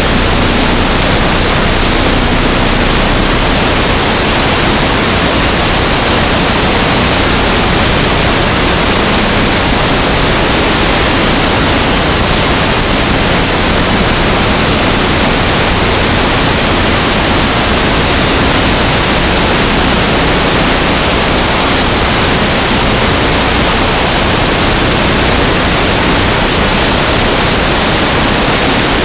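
Loud, steady static hiss, even across the whole range from low to very high, with no other sound standing out of it.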